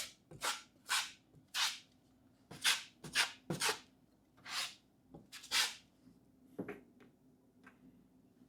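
Putty knife spreading a thin coat of all-purpose compound over a self-adhesive patch on sheetrock: a series of short scraping strokes, about ten, that thin out near the end.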